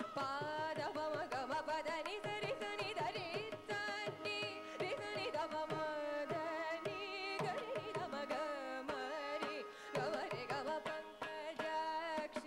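Carnatic vocal music: a woman sings a kriti in raga Kamavardhini (Pantuvarali), set to Misra Chapu tala, with heavily ornamented sliding notes. She is accompanied by violin and by regular strokes of a mridangam.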